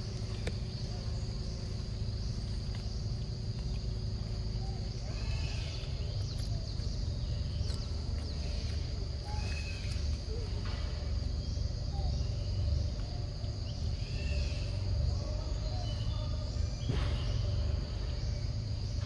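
Forest ambience: a steady high insect drone over a low rumble, with short chirping calls from about five seconds in.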